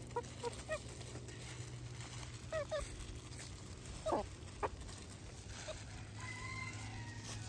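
Backyard chickens making short, soft clucks and chirps in small clusters, with one quick falling call about four seconds in and a longer, steadier note near the end. A steady low hum runs underneath.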